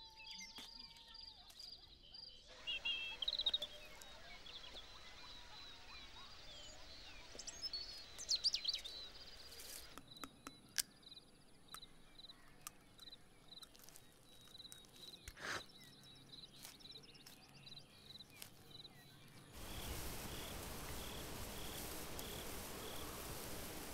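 Countryside ambience: a steady background hiss with birds calling, loudest about three and eight seconds in, and an insect chirping in a regular pulse, a little under two chirps a second, through the second half. The background hiss grows louder for the last few seconds.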